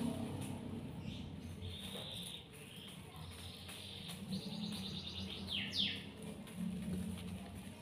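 High chirping and trilling calls in the background, with two quick falling chirps about six seconds in.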